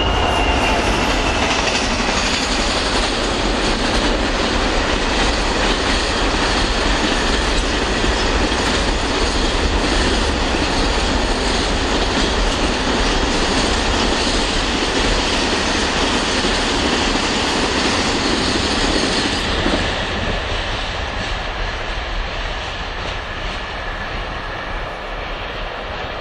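Container freight train running past, with a steady rumble and clatter of wagon wheels on the rails. The sound eases about twenty seconds in as the last wagons go by.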